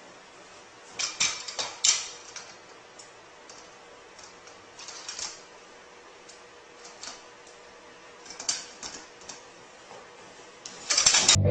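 Scattered clicks and knocks of a doorway pull-up bar being fitted into the door frame and gripped, over a faint steady hum. A brief loud noise comes near the end.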